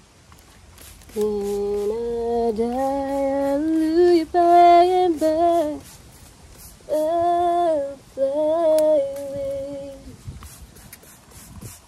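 A woman singing a tune to herself without words, in two phrases of held notes that step up and down in pitch.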